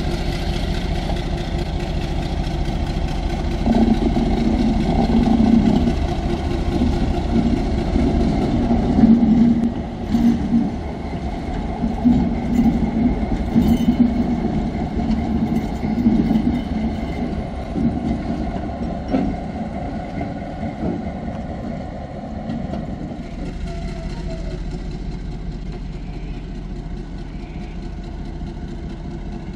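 Diesel locomotive Y133 engine running steadily, with louder uneven rumbling and knocks over the middle stretch that settle back to the steady engine note near the end.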